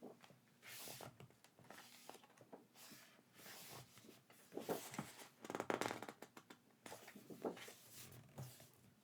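Hands handling packaging and merchandise: irregular rustling and scraping, with a longer rasping sound a little past the middle that is the loudest part.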